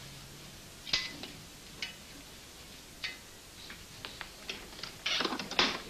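Irregular sharp clicks and taps, spaced a fraction of a second to about a second apart, then a denser clatter near the end.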